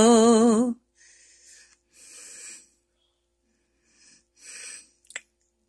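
A woman's voice holding the last sung note with vibrato, which stops just under a second in. Soft breaths follow, then a small click near the end.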